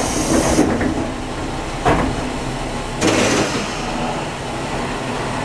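Diesel railcar's pneumatic doors closing at a station stop: a hiss of air that stops just after the start, a knock about two seconds in, and a second knock with a short hiss about three seconds in, over the railcar's idling diesel engine.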